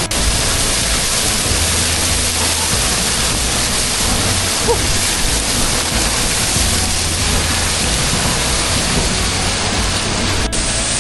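A 25-metre waterfall pouring into its pool: a loud, steady rush of falling water.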